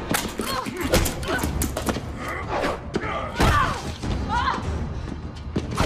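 Fight sounds: a rapid series of blows, thuds and scuffles with short grunts and cries of effort, over suspenseful orchestral music.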